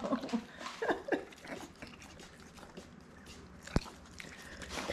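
Adult Rottweiler sniffing and licking a newborn puppy, giving soft wet mouth clicks and smacks. A sharp click comes a little before the end.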